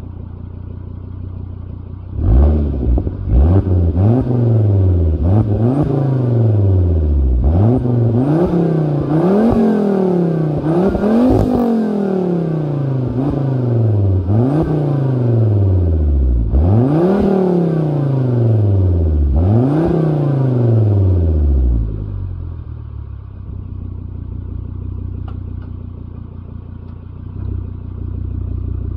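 Volvo V70 R's turbocharged inline-five, run through a 3-inch OBX exhaust with the resonator deleted and a catted downpipe, revved while parked: it idles, then takes about fifteen quick throttle blips, each rising fast and falling back more slowly. About 22 seconds in it settles back to a steady idle.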